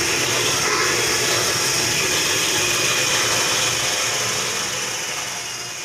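Cordless drill running steadily as it drives a screw into an aluminium door frame, fading out near the end.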